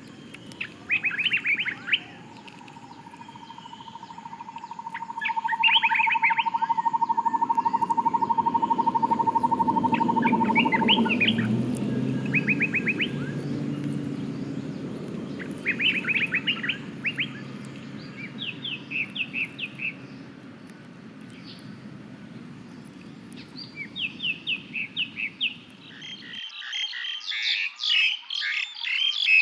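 Birds chirping in short, rapid series every few seconds, over a low steady background, with a steady high tone held for several seconds near the start. A few seconds before the end the background cuts off abruptly and the chirping becomes dense and continuous.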